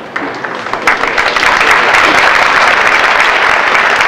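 Audience applauding in a concert hall, swelling and growing louder about a second in.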